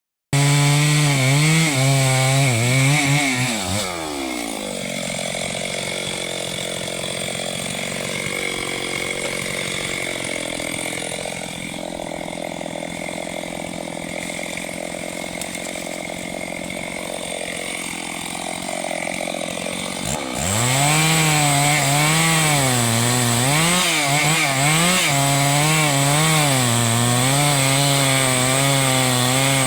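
Chainsaw cutting into a mahogany trunk at full throttle, its engine note wavering under the load. About three and a half seconds in the engine drops back and runs lower and quieter for some sixteen seconds. Near 20 seconds it is opened up again and cuts on loudly.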